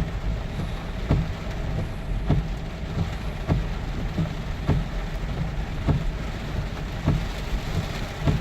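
Car cabin while driving in rain: steady road rumble and rain on the car. A short knock comes about every 1.2 seconds, the regular beat of windshield wipers.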